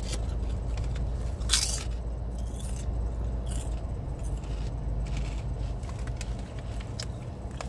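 Thin, wafer-like Clancy's potato chips being crunched and chewed, with a sharp crunch about one and a half seconds in and lighter crunches after it. A steady low hum runs underneath.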